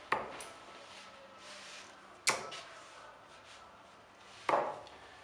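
Three darts striking a dartboard one after another, a sharp thud about every two seconds.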